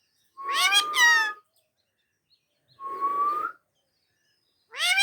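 Pet parrot calling: two short calls about two seconds apart, and a third starting just before the end.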